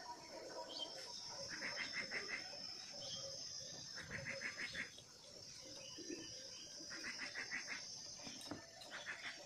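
An animal calling in short, fast runs of notes, four runs spaced two to three seconds apart, over a steady high-pitched hum.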